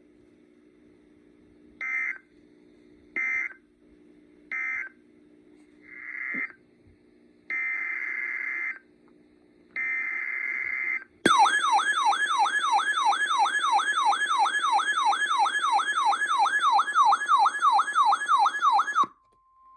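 Emergency Alert System digital data bursts: three short screeching bursts, then three longer ones, over a faint low hum. These are the end-of-message codes closing one warning and the header codes of the next. About eleven seconds in, a loud warbling attention tone starts, sweeping up and down about four times a second, and cuts off shortly before the end.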